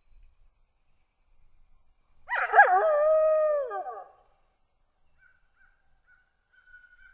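Wolf howling: one short howl about two seconds in, wavering at the start, then held, and falling in pitch as it ends. A faint, thin high tone follows near the end.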